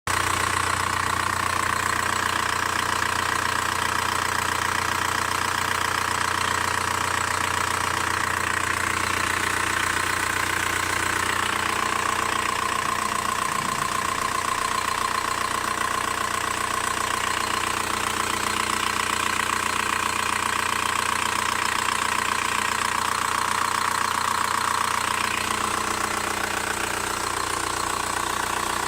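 VW Bora 1.9 TDI four-cylinder turbodiesel engine idling steadily with a ticking sound in its running.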